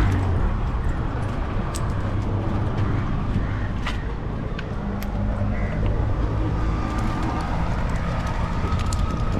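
Boat engine running steadily with a low hum, a few faint light ticks over it.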